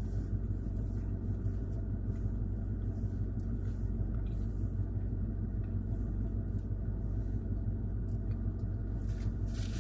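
Steady low rumble of a car's idling engine, heard from inside the cabin, with a few faint soft ticks scattered through it.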